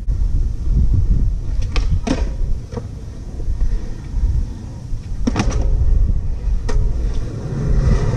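Skateboard rolling on concrete, its wheels giving a steady low rumble, with several sharp clacks of the board hitting the ground: a pair about two seconds in, a cluster around five and a half seconds, and one more near seven seconds.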